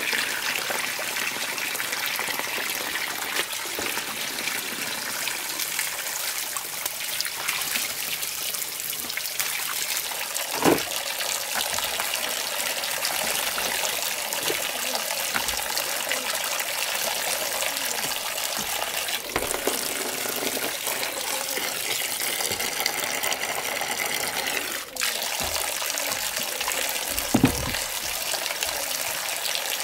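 Running water, a steady gushing and trickling, with two brief thumps, one about a third of the way in and one near the end.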